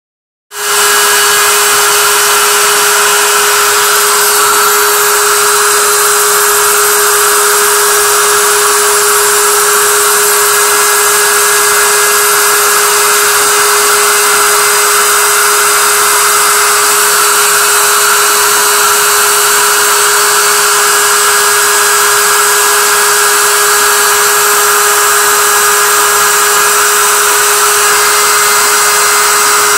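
GP10050 CNC mill's spindle running steadily as its small end mill cuts slots in 1.5 mm brass sheet: a constant whine with one steady tone and a hiss over it, starting suddenly about half a second in.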